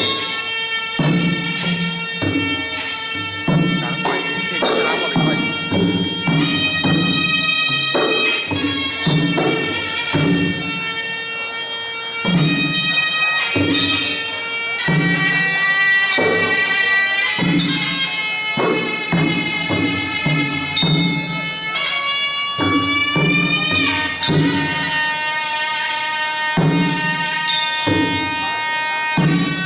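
Traditional Khmer boxing ring music: a sralai reed oboe plays a continuous, wavering melody over a steady beat on hand drums.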